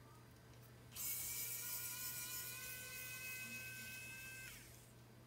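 Wowstick 1F Pro electric precision screwdriver turning a small screw through an extension bit: its little motor starts about a second in, runs with a steady whine for about three and a half seconds, rising slightly in pitch, and winds down as it stops.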